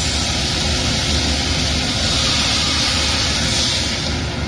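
Green beans and meatballs sizzling in a hot stainless-steel wok while being stirred: a steady hiss over a low hum, easing a little near the end.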